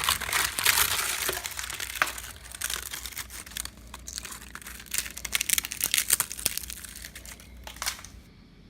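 Termites chewing inside wood: a dense, uneven crackling of tiny clicks and rustles, the sign of an active termite infestation. It stops near the end.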